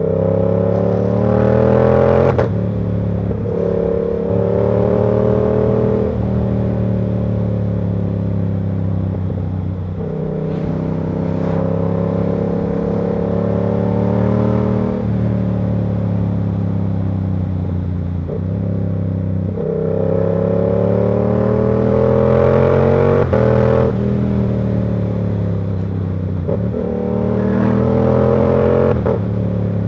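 Yamaha R7's parallel-twin engine through its KO Lightning exhaust, pulling up through the revs and dropping sharply at each gear change, about half a dozen times. Between shifts it holds steadier or eases off.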